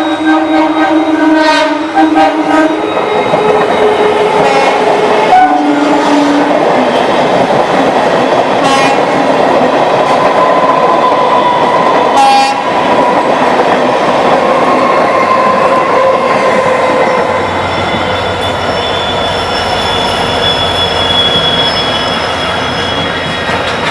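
A train sounding its horn and passing close at speed. One long horn note ends about three seconds in and a short second blast follows a couple of seconds later, then the steady rumble and rattle of wheels on the rails, with occasional sharp clicks.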